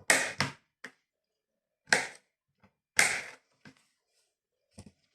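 Knife cutting pineapple on a cutting board: a handful of separate sharp cuts, a few with a short slicing tail.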